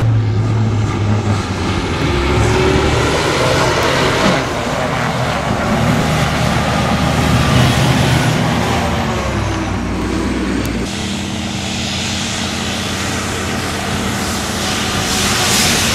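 MAN rally truck's diesel engine running under load as the truck drives fast through desert sand, the engine note rising and falling. The sound changes suddenly about eleven seconds in.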